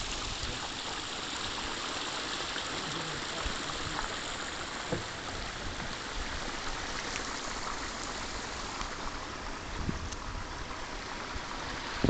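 Small creek running after rain: a steady rush of flowing water.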